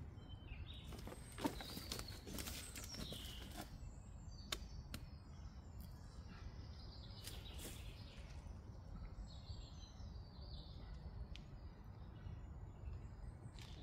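Woodland birds chirping faintly over a low, steady rumble, with a few soft clicks and rustles of handling at the tree trunk.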